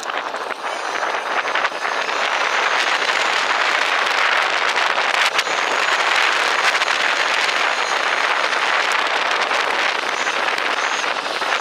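Bicycle tyres rolling along a trail, with wind rushing over the microphone as a steady noise. There are a few sharp clicks and knocks in the first couple of seconds.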